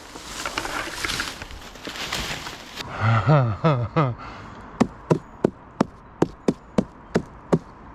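Rustling, then a few low, falling, croaking calls, then a steady run of sharp knocks on wood, about three a second.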